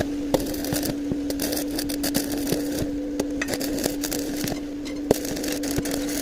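Arc welding on a square pipe joint: the arc buzzes at a steady pitch, with irregular crackles and pops.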